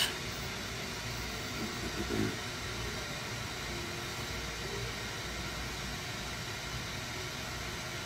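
Steady rushing hiss of a glassworking torch flame burning while a glass tube is heated. A single sharp click at the very start.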